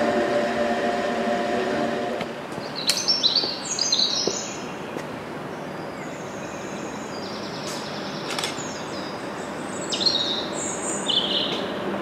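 A train's steady hum with several tones cuts off about two seconds in. After that a songbird sings short, high chirping phrases again and again over faint background noise.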